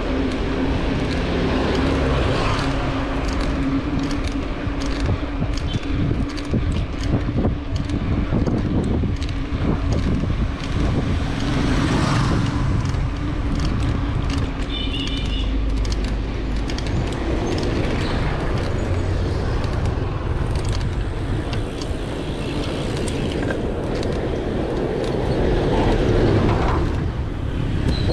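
Road traffic heard from a moving bicycle: motor vehicles running and passing, with a steady engine hum through the first half, and wind buffeting the microphone.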